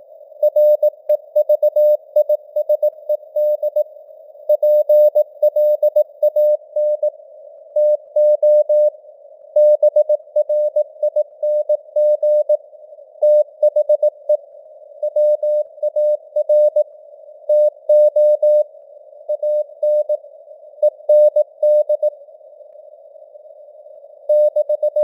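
Morse code (CW) sent at 18 words per minute: a steady mid-pitched tone keyed on and off in dots and dashes, over simulated radio band noise, its signal strength fading up and down (QSB). There is a longer pause between groups near the end.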